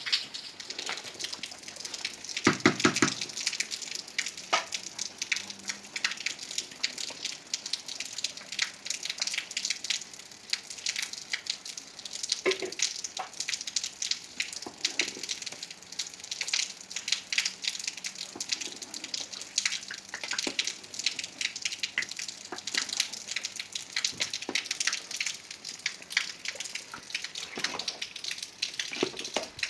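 Water splashing and dripping in a dense patter of small drops, with a brief louder pitched sound about three seconds in.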